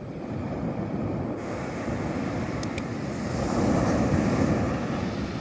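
Sea waves washing at the jetty, with some wind on the microphone, swelling about two-thirds of the way through as a wave comes in.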